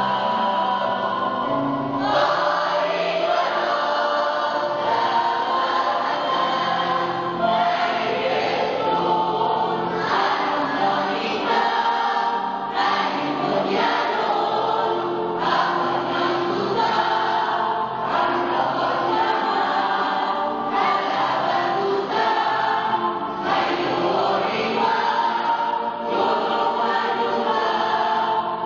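Children's choir singing together, holding sung notes that change every second or so.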